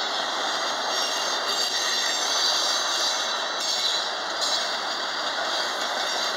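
Cars of a mixed freight train rolling past on the main line: the steady noise of steel wheels on rail.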